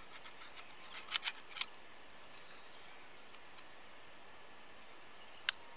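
Small plastic clicks as the eyepiece adapter is worked into the grooves of an OWL-NV N7 night vision clip-on. Near the end comes one sharp click as the twisted adapter locks into place.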